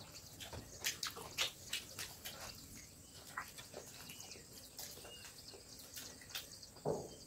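Quiet sounds of people eating rice by hand from banana leaves: faint scattered clicks and wet smacks, with a couple of faint high chirps in the middle and a louder short sound near the end.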